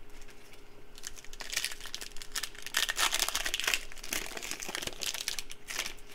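Foil wrapper of a Panini Prizm football card pack crinkling as it is torn open and handled. A dense crackle starts about a second in and runs until near the end.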